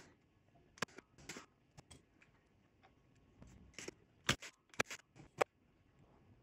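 Irregular sharp clicks and taps of hand tools on a circuit board while trim-pot legs are being desoldered, the sharpest ones coming in the second half.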